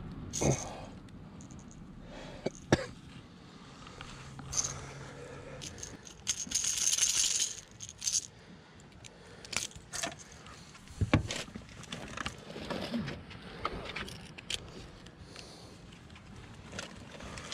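Fishing gear being handled: metal pliers and a small lure clicking and rattling as the hook is worked out of a bass's mouth. Sharp clicks and knocks come scattered throughout, with a longer scraping rustle about six to eight seconds in.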